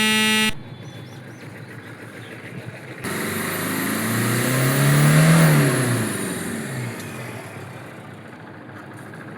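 A short, loud steady beep, then a motor vehicle's engine sound that swells and fades over about five seconds, its pitch climbing then dropping.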